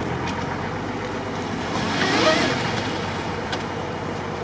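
Suzuki Jimny's engine running as it creeps through a muddy rut, under steady wind noise on the microphone; the sound swells briefly about two seconds in.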